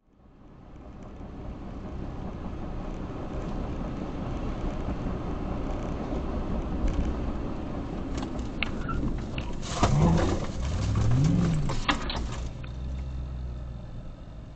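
Car driving noise picked up by a dashcam inside the car: steady engine and road noise that fades in over the first two seconds. Around ten to twelve seconds in it gets louder, with a pitch that rises and then falls.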